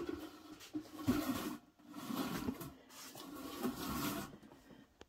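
A swivel chair being pulled and shuffled into place at a desk, in several scraping, rubbing strokes of about half a second to a second each, with a short knock about a second in.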